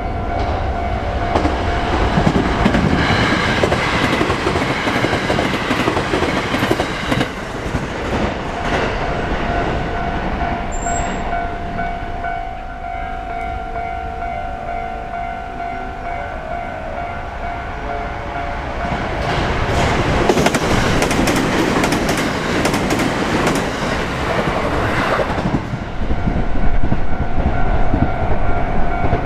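Japanese level-crossing warning bell ringing steadily while two trains rumble through over the rails, the first from about a second in to about nine seconds, the second from about nineteen to twenty-six seconds.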